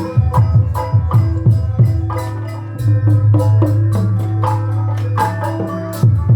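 Sundanese gamelan music accompanying a tayuban dance: rapid kendang hand-drum strokes whose low notes slide down in pitch, over ringing tuned metal percussion, with a deep note held from about three seconds in to near the end.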